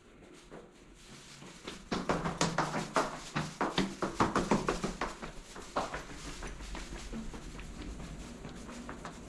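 Quick footsteps going down a flight of stairs, about four steps a second, fading out about two-thirds of the way through.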